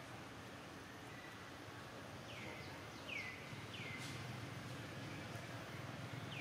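Short high animal calls, each falling in pitch and then levelling off, three in quick succession a couple of seconds in and one more near the end, over a faint steady outdoor background.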